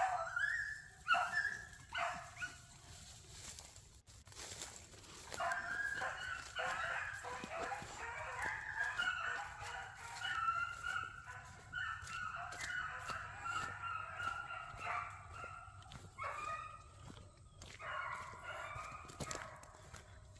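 A pack of beagles baying as they run a rabbit's scent trail, several voices overlapping. The baying comes in a short burst at the start, a long unbroken stretch from about five seconds in to about fifteen, and shorter bursts near the end.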